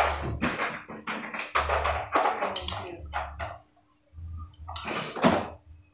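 Close-up eating sounds from vegetable soup: a metal spoon clinking and scraping in a bowl, with slurping and chewing as a string of quick clicks and wet smacks.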